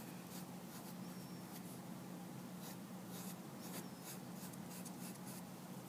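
Faint, irregular scratchy strokes of a dull pencil rubbing and pressing into a styrofoam printing plate, denting down the background around the drawing, over a steady low hum.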